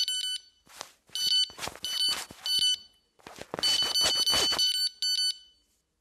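Electronic carp bite alarm beeping in a run of about six short beeps and one longer beep, set off by a card being rubbed through its line slot, with the scratchy scrape of the card against the head.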